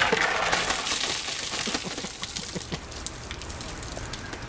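Ice water poured from a plastic protein jug splashing over a person's head and onto the ground. It starts as a sudden rush of splashing, loudest in the first second or so, then tapers off into scattered drips.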